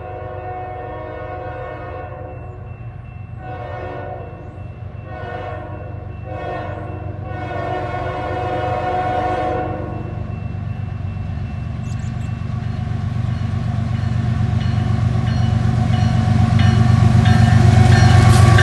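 Diesel freight locomotive's multi-note air horn sounding in several blasts, the last one the longest, ending about halfway. Then the approaching locomotives' engine rumble and the clatter of wheels on rail grow steadily louder as the lead unit draws level.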